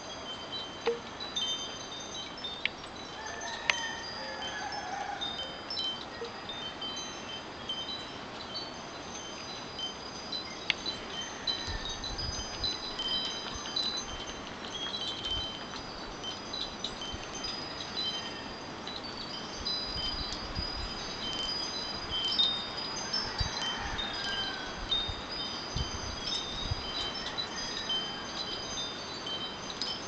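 Metal wind chimes ringing on and off in gusty wind, several high tones overlapping and hanging on, over a steady rush of wind. Low buffets of wind hit the microphone a few times in the second half.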